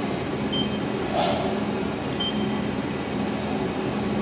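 Steady mechanical hum of an industrial building, with a low drone throughout. A faint short high beep sounds twice, and a brief louder noise comes about a second in.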